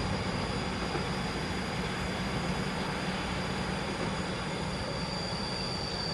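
Passenger train rolling past, a steady rumble and rush of wheels on the rails.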